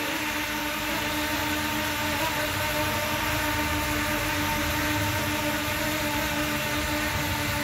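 Small quadcopter's brushless motors and propellers running steadily in flight, an even whine.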